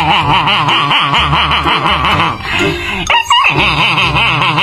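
Dog snarling with bared teeth, a continuous growl that wavers rapidly in pitch. It breaks off briefly a little after three seconds with a short sharp sound, then goes on.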